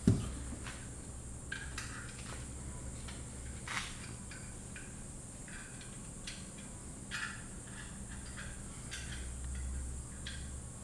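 Hand tools and small metal parts clinking and tapping against the engine while work goes on at the diesel injection pump, with a louder knock right at the start and a dozen or so scattered short clicks after it, over a low steady hum.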